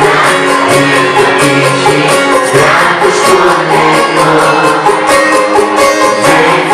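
Loud live music: a male singer performing a Greek pop song over band backing with a steady beat.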